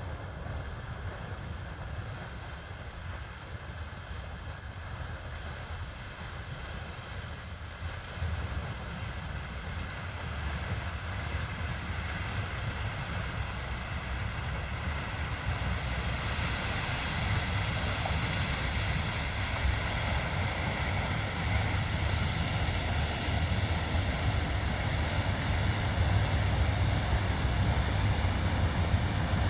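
Waterway police vessel breaking through harbour ice: a low engine rumble with a rushing, grinding noise of broken ice along the hull, both growing steadily louder as the boat draws near.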